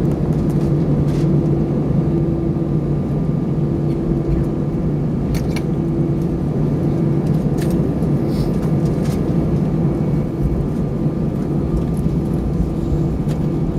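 Steady cabin noise of an Airbus A320 taxiing after landing: engines at idle and air-conditioning, a strong low hum with a faint steady whine above it and a few light clicks.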